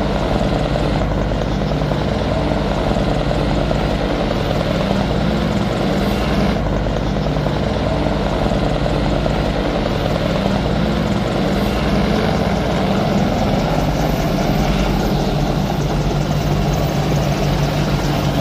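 Several AH-64 Apache attack helicopters flying low on approach to land, their rotors and engines making a loud, steady drone.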